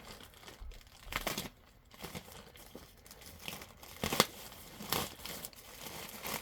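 Packaging being crinkled and torn open by hand, in irregular sharp rustles and snaps, the loudest about four seconds in.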